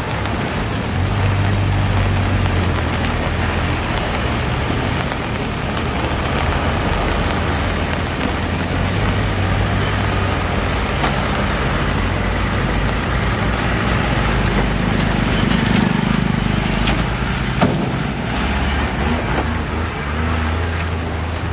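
Heavy diesel trucks passing slowly one after another over a wet, potholed road: engines running with a steady low hum that swells as each truck draws near, over constant tyre noise on the wet surface. A single sharp knock near the end.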